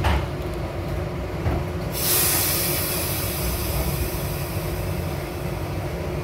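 SEPTA Broad Street Line subway train running through a station: a steady low rumble of wheels on rail, with a knock at the start and a sudden hiss of air about two seconds in that slowly fades.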